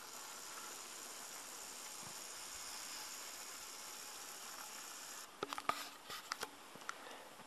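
Faint steady hiss, then a quick run of crunching clicks lasting about a second, a little past five seconds in.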